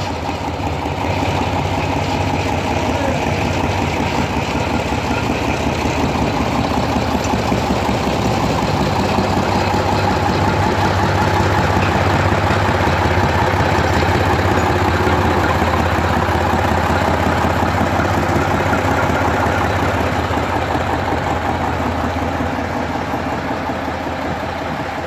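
Small narrow-gauge diesel shunting locomotive's engine running steadily with a fast, even beat as it propels another locomotive slowly along the track, a little louder midway and easing toward the end.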